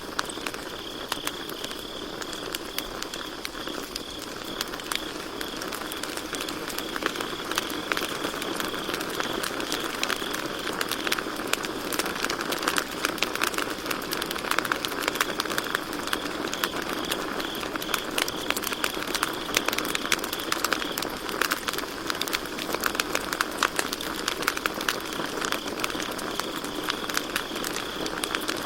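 Campfire crackling with dense, irregular pops and snaps, over a steady high trill of crickets.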